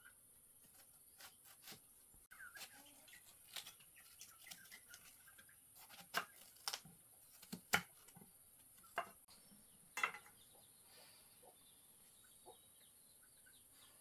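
Irregular sharp knocks and clicks, a few of them loud, over faint chicken clucking.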